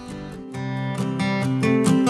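Background music with a strummed acoustic guitar; it grows louder about half a second in.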